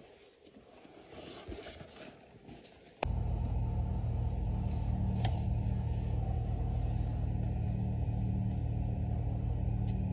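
Faint rustling and light clicks, then, about three seconds in, a car engine suddenly starts being heard running steadily, a loud, even low drone close to the microphone.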